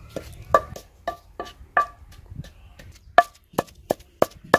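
Wooden pestle pounding onion and whole spices in a stone mortar. The strokes come at about three a second, each a sharp knock with a brief ring.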